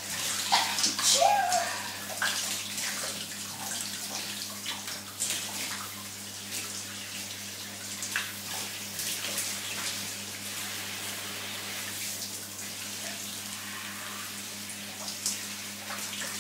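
Shower water running and spattering steadily, over a steady low hum. There are a few louder splashes in the first two seconds.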